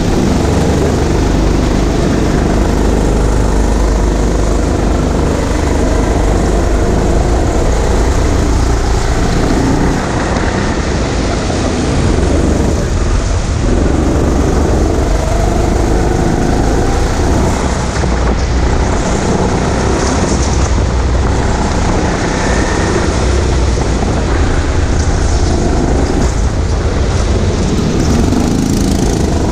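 Go-kart engine running continuously as the kart is driven around an indoor track, heard from the driver's seat, with the noise of the ride heavy in the low end.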